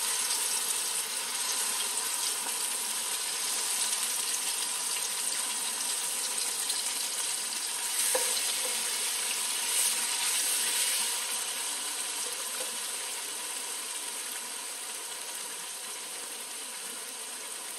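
Freshly blended chilli-and-onion spice paste sizzling in hot oil in a frying pan as it is sautéed, the sizzle slowly quietening. The stirring spoon clicks against the pan a couple of times partway through.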